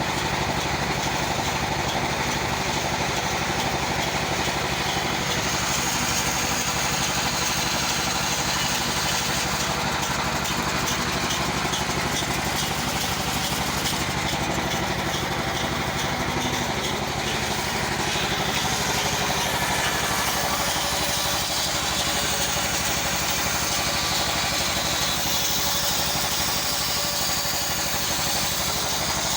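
Portable bandsaw machine running steadily, a constant engine-like hum with a noisy mechanical whir over it.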